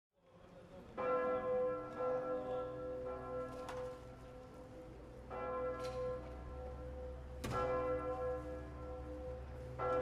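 Church bell ringing to call the faithful to Sunday mass: one bell struck five times at uneven intervals of one to three seconds, each stroke ringing on into the next.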